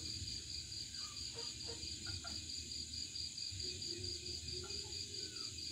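Night crickets chirping in a steady, high, pulsing trill of about four pulses a second, with a few faint short sounds lower down.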